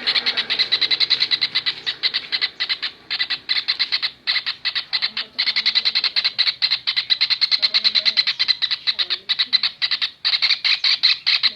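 Kingfisher (tengkek raja udang) calling in a rapid, shrill chatter of sharp notes, about eight a second, with a few brief breaks.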